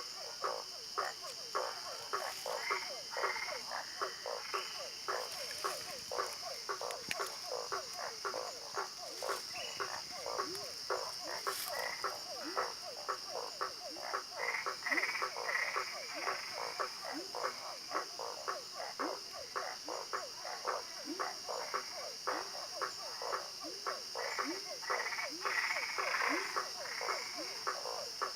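A chorus of frogs calling: short croaks repeated several times a second, many with a quick rising sweep, over a steady high-pitched tone.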